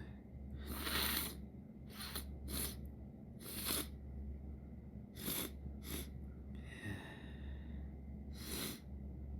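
A person sniffing hard through a blocked, runny nose: a run of about eight wet, gurgly sniffles, the longest and loudest about a second in. A short voiced catch of breath comes around seven seconds in.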